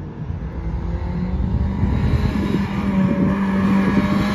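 1986 Porsche 944's 2.5-litre four-cylinder engine pulling hard at high revs. Its pitch climbs over the first second or so, then holds steady and high while it grows louder.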